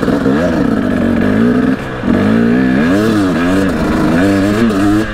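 KTM dirt bike engine revving under throttle as it is ridden, its pitch rising and falling repeatedly, with a brief drop in the engine note about two seconds in.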